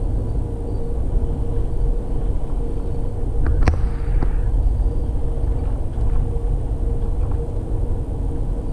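Amtrak passenger train in motion: a steady low rumble of the car rolling along the track, with a constant hum and one sharp click a little over three and a half seconds in.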